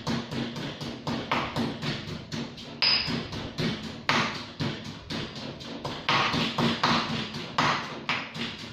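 Pestle pounding garlic, chilies and salt in a mortar, striking about three times a second.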